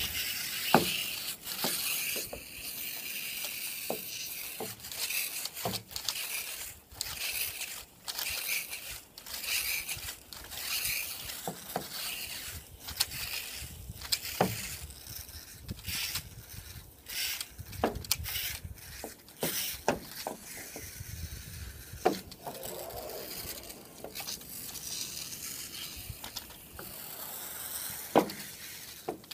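Water-fed window-cleaning pole and brush at work: irregular scraping, rubbing and clicking from the pole and brush scrubbing the glass, over a fluctuating hiss, with a few sharp squeaks, the loudest about a second in, around 22 seconds and near the end.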